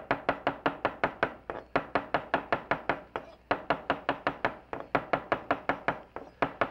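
Chef's knife chopping parsley on a wooden cutting board: fast, even strokes about five a second, with a short break a little before halfway through.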